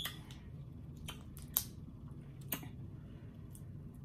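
Boiled shrimp shell crackling and snapping as it is peeled by hand, a few sharp clicks over a low steady hum.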